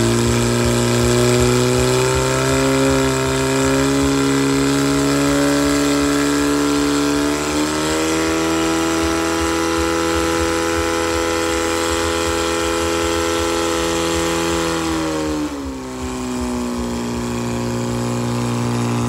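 Portable fire pump engine running at high revs under load, driving water through the hoses to the nozzles. Its pitch steps up slightly about seven seconds in, then drops sharply about fifteen seconds in and settles at a lower steady speed.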